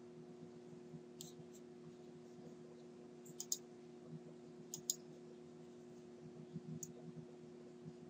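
About six small sharp clicks, the middle ones in two close pairs, over a faint steady low hum.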